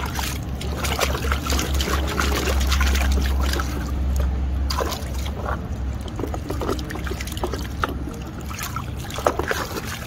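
Water splashing and sloshing in a plastic basin as a hand scrubs a plastic toy crocodile, in many short irregular splashes. A low rumble sits under the first half and fades about halfway through.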